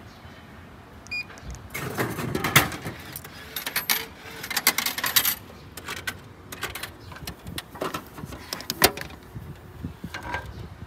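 Japanese DyDo vending machine selling a canned coffee: a short beep about a second in as the button is pressed, then the can clattering and clunking down through the machine for a few seconds. Clicks and knocks follow as the delivery flap is pushed open and the can is taken out near the end.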